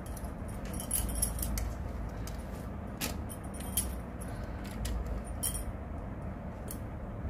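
Scattered light clicks and clinks of makeup containers being handled, a handful of short taps over a low steady hum.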